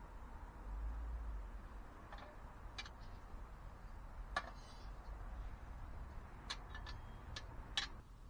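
Firewood crackling in a small wood stove: sharp pops and snaps at irregular intervals, with a cluster of them close together near the end.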